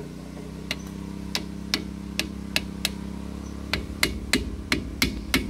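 Hammer tapping the new main oil seal into the excavator swing reduction gearbox housing: a run of sharp taps, roughly two to three a second, starting about a second in, over a steady low hum.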